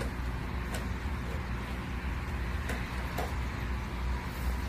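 A steady low rumble with a few faint, short clicks.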